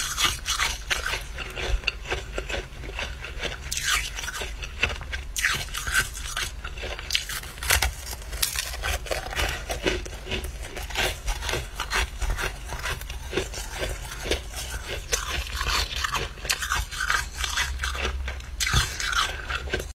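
Dry, crunchy freezer frost being crunched and scraped: an irregular run of short, crisp crunches, several a second.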